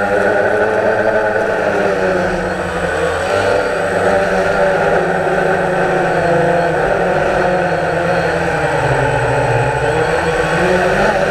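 DJI Phantom quadcopter's motors and propellers whirring in flight, heard close up through the GoPro mounted on it. The pitch drifts up and down as the motors change speed.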